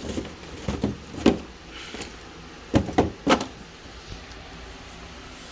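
Handling noise: several short, sharp knocks and clacks, loudest a little over a second in and again around three seconds in.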